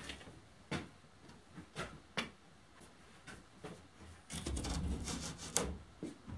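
Wooden knocks and scraping of wood on wood as an OSB wall panel is shifted against the timber framing: a few separate sharp knocks, then a longer scrape about four seconds in and another knock just after it.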